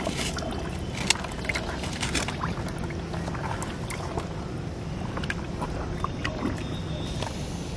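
Fingers sorting earthworms out of wet mud in a metal bowl, giving scattered small clicks and squelches over a steady low rumble.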